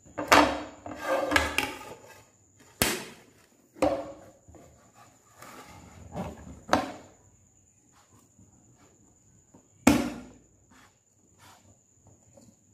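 Aluminium cake tin turned upside down onto a ceramic plate and knocked and tapped on its base to release the baked cake: a series of irregular knocks and clatters, the loudest near the start and about ten seconds in.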